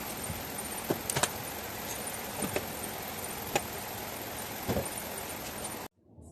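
Scattered light clicks and clinks over a steady hiss, cut off abruptly near the end.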